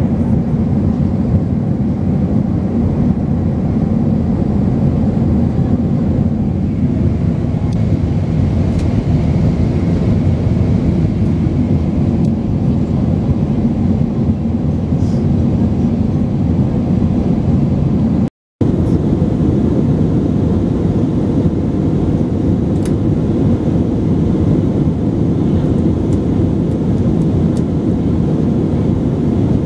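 Steady low rumble of cabin noise inside an Airbus A320 in flight, the IAE V2500 turbofans and the airflow over the fuselage heard from a window seat. The sound drops out for a split second about two-thirds of the way through, then resumes unchanged.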